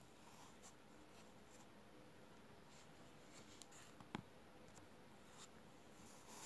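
Near silence: faint room tone with a few small handling ticks and rustles, and one sharper click about four seconds in.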